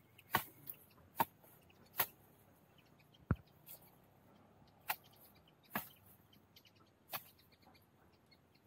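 Chopping blows of a hand tool at the base of a bamboo clump while digging out bamboo shoots: about eight sharp, irregular strikes roughly a second apart, with one heavier thud a little after three seconds in.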